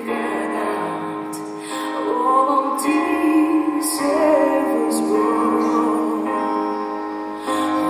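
A woman singing through a microphone over a live orchestra, her voice wavering on long held notes above sustained accompaniment.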